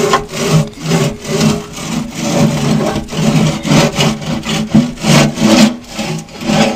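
Steel fifth-wheel pin box scraping against the camper's steel frame as it is worked back and forth and pulled out, in repeated rasping strokes a few times a second.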